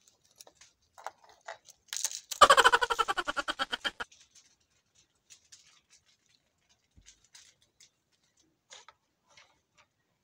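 Small objects and wrapping being handled on a wooden table: scattered light clicks and taps. About two seconds in comes a loud rapid rattle of clicks lasting about a second and a half.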